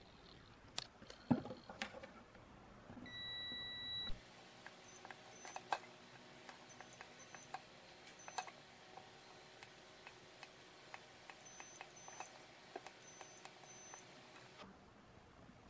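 Digital multimeter beeping in continuity mode as its probe tips touch the pins of a small circuit board: short high beeps, mostly in pairs, with light ticks of the probes against the board. About three seconds in comes a single lower beep lasting about a second.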